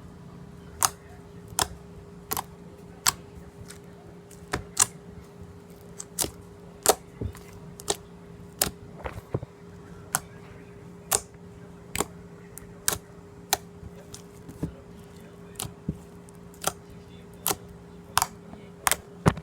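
Clear slime in a small tub being poked with a finger, each poke giving a sharp little click or pop, about one to two a second at an uneven pace. A steady low hum runs underneath.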